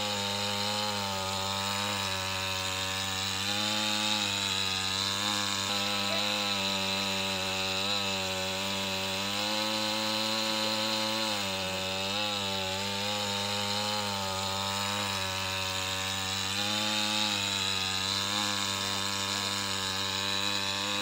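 Petrol chainsaw engine running hard, as when cutting wood, its pitch sagging and recovering every few seconds under load.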